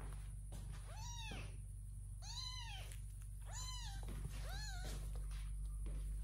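A small kitten meowing four times, each call high-pitched and rising then falling, the calls a little over a second apart.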